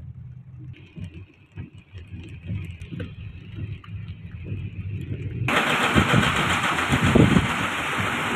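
Car driving on a wet road in the rain: a low road rumble inside the cabin. About five and a half seconds in, a loud hiss of tyres and spray on the wet road comes in suddenly and holds.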